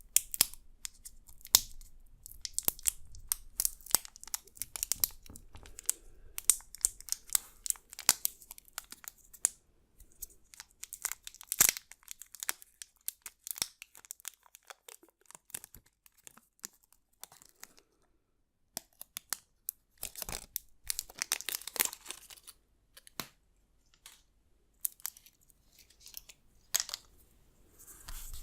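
Pencil sketching on drawing paper: quick, scratchy strokes in dense runs, stopping for a few seconds past the middle.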